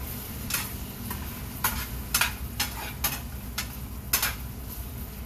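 A cooking utensil stirring and scraping in a pan on the stove, making a series of irregular short clicks and scrapes over a steady low hum.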